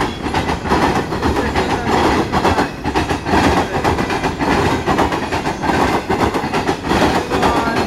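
Freight train of covered coil steel cars rolling past close by: a steady loud rumble with steel wheels clacking on the rails.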